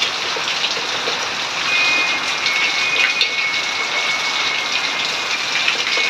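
Steady rain falling. A thin, steady high tone joins it about two seconds in.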